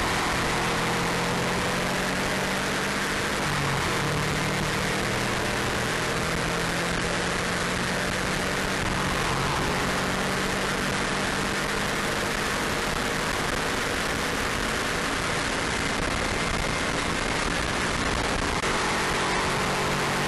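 Subaru Impreza WRX RA's turbocharged flat-four engine with a stainless exhaust, running hard at a fairly steady pitch on track, under a steady rush of wind and tyre noise.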